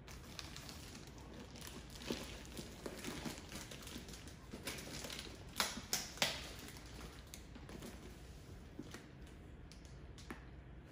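Thin plastic wrap crinkling and rustling faintly as it is handled and pulled at, with a few sharper clicks about halfway through.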